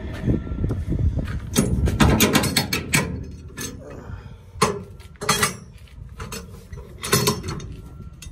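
Sharp metal clanks and clinks in clusters, about two seconds in, around five seconds and again near seven seconds, as a semi-trailer's landing-gear crank handle is unhooked and swung out. Under them runs a low steady rumble from the idling tractor.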